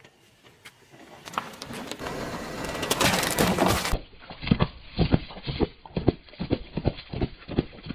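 A car tyre rolling slowly over cups of moulded kinetic sand, a gritty crunch that builds to its loudest just before four seconds in. After a cut, the tyre bursts a row of small drink cartons one after another, about a dozen sharp pops at roughly three a second.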